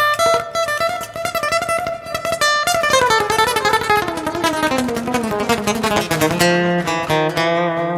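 Thin-body electro-acoustic guitar played as a lead line of quick single picked notes. A run falls in pitch from about three seconds in and settles on a held low note near the end.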